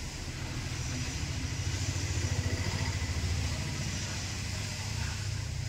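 An engine running with a low, fast-pulsing rumble that grows louder toward the middle and then eases off.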